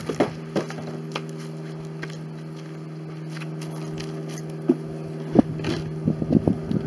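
Handling noise from a wooden box of coop bedding being carried and set down at a compost bin: scattered light knocks over a steady low hum. About five seconds in the hum stops and wind buffets the microphone, with a quick run of crackling and rustling as the box and bedding are handled at the bin.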